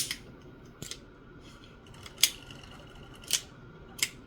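Action of a Smith & Wesson Model 629 .44 Magnum revolver being worked in a dry function check after reassembly: a series of about five sharp metallic clicks, roughly one a second, from the hammer and trigger.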